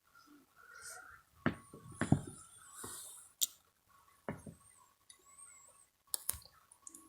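CNC 3018 Pro desktop router at work: several sharp clicks and knocks as the axes trip their limit switches, with a faint steady whine from the stepper motors between them.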